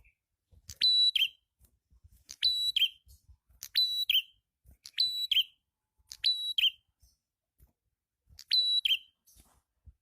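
Prenjak kepala merah calling repeatedly, six short calls at about one-and-a-half-second intervals. Each call is a quick upward sweep into a steady high whistled note, ending in a lower slurred note.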